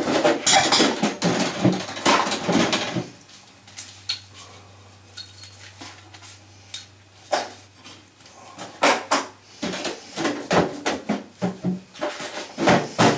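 Hands handling tools and parts: scattered knocks, clicks and clatter, with a denser stretch of rustling and rattling in the first three seconds.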